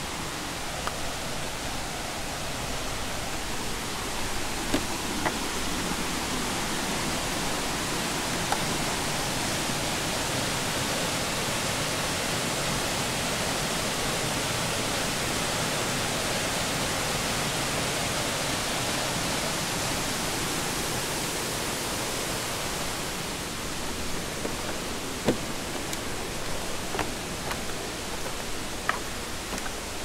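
Small jungle waterfall and its stream running in a steady rush of water, louder through the middle stretch. A few light clicks stand out near the beginning and the end.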